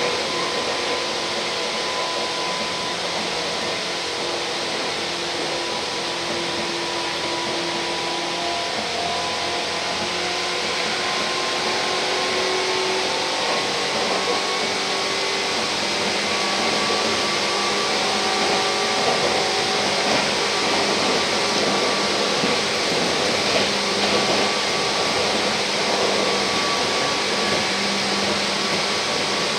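Tokyu 8500 series electric train running, heard inside the passenger car: a steady rushing noise of wheels on rails with faint humming tones that shift in pitch, growing a little louder about midway.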